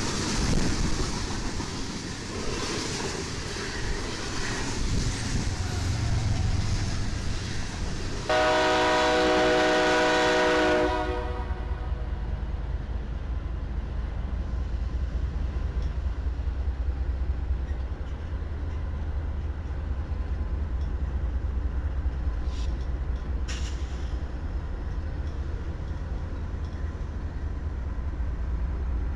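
A freight train rushes past, and a diesel locomotive's horn sounds one long blast of about three seconds. Then comes a steady low rumble from diesel locomotives moving slowly past, with a couple of brief clanks near the end.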